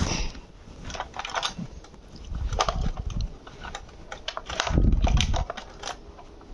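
Handling noise of an RC car's battery pack and its wire connector being fitted into the car's plastic battery compartment: scattered small plastic clicks and rattles, with two dull thumps about two and a half and five seconds in.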